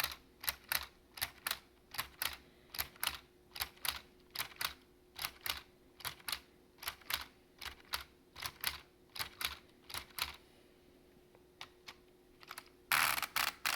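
Lego typewriter typing: plastic keys and type mechanism clicking at a steady pace of about three strokes a second. Near the end a few slower clicks lead into a louder, longer clatter.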